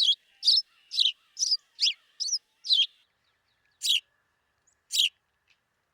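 House sparrow chirping: a run of short, sharp chirps at about two a second, slowing to two last chirps about a second apart.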